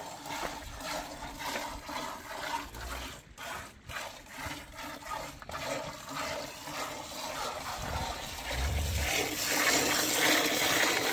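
Milk squirting from a cow's teats into a half-full enamel bucket as two people hand-milk from both sides: a rhythmic hissing splash of streams hitting the milk, growing louder near the end.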